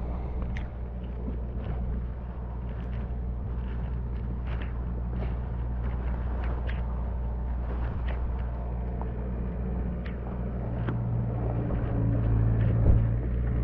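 Compact excavator's diesel engine running steadily, a low hum that grows louder near the end, with wet leaves and branches brushing and rustling close by. A single sharp knock just before the end.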